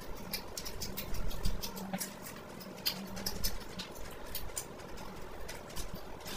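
Crisp, crackly skin and flesh of a whole deep-fried fish being torn apart by hand, heard close up as a run of small, irregular crackles and clicks.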